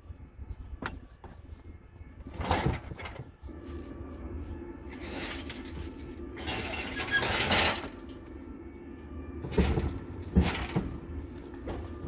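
Metal clunks, rattling and scraping from work on the engine and engine bay as a car engine is worked out of the car. The longest stretch of scraping is in the middle, and two sharp knocks come near the end.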